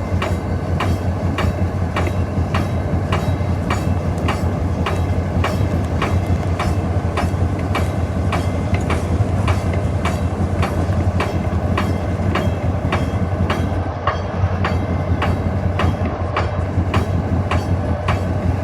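Cab sound of a moving EMD SD40-2 diesel-electric locomotive: its 16-cylinder turbocharged diesel runs with a steady low drone, under an even clicking about three times a second.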